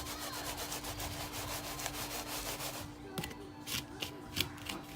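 Dry crushed hot Cheeto crumbs rubbed and scraped as food is pressed and rolled in the coating, in a quick steady rhythm of strokes for about three seconds, then a few separate light taps.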